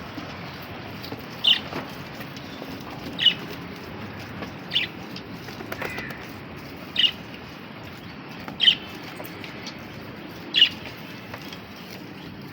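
A bird chirping, six short high calls spaced about two seconds apart, over a steady low background hum.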